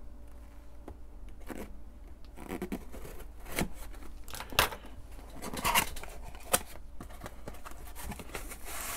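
Scissors cutting the seal on a small cardboard box, with about half a dozen sharp snips and scrapes roughly a second apart. After that come the scratching and rustling of cardboard flaps and packing being pulled open.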